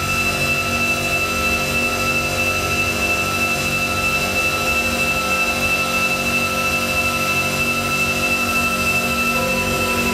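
Sustained electronic drone from a tabletop live-electronics setup: many held tones layered over a low rumbling noise, with a high steady whistle-like tone the loudest, and little change except a slight shift in the middle tones near the end.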